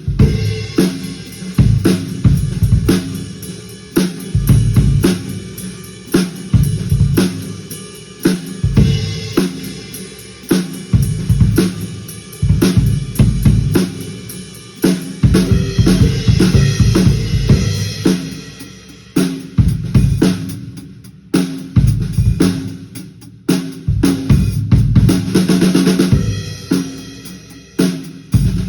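A drum kit played in a slow, heavy groove: bass drum and crisp Ludwig Supraphonic snare hits with Paiste 2002 cymbals. Cymbals ring out and wash over the beat around the middle and again near the end.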